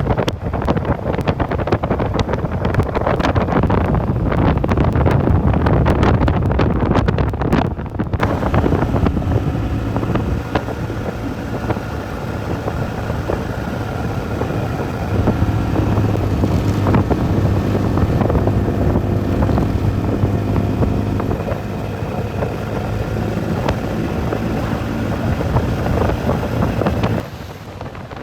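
Motorcycle riding at road speed, with heavy wind buffeting on the microphone. About eight seconds in the buffeting eases and a steady engine drone comes through underneath; the sound drops off near the end.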